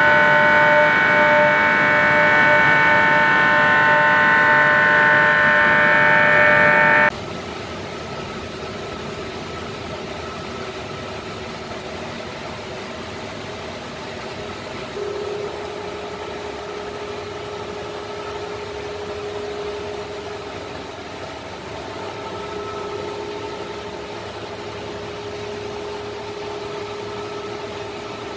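Sabroe SAB 163 HF MK3 ammonia screw compressor running, driven by its 200 kW electric motor: a steady mechanical whine of several fixed tones. It is loud for about the first seven seconds, then drops abruptly to a quieter steady hum and whine.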